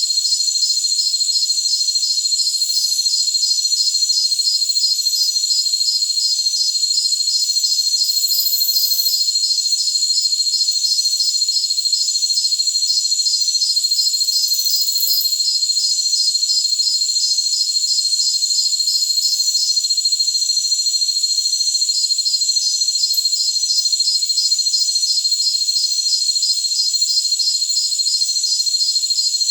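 Chorus of jungle crickets: a steady high-pitched trill with a fast, regular pulsed chirping over it. The chirping stops for about two seconds roughly twenty seconds in, then resumes.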